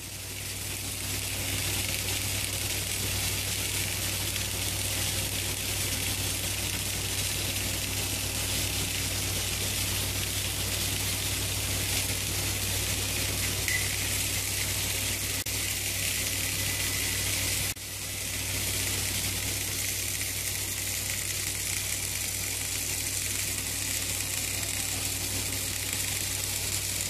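Dual-torch automatic orbital pipeline welding machine arc-welding a pipe joint: a steady hiss from the welding arc over a low hum. It breaks off briefly about two-thirds of the way through, then carries on.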